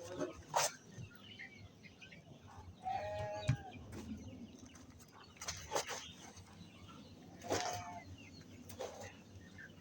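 Chickens clucking in a few short calls, with several sharp knocks or clicks in between.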